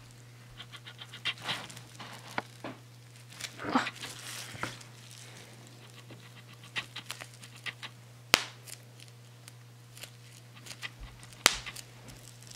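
Bubble wrap pressed under fingertips: scattered sharp pops with plastic crinkling between them, the two loudest pops about two-thirds of the way through and near the end. A quick run of faint ticks near the start fits the camera's 18-55mm kit-lens autofocus motor, which is audible on the recording.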